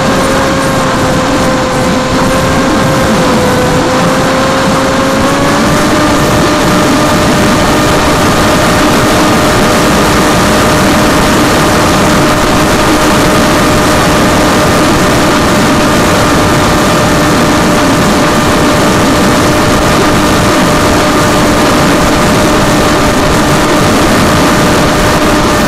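An FPV model aircraft's motor and propeller heard from its onboard camera: a steady hum over a loud rush of air, its pitch stepping up slightly about five seconds in and then holding.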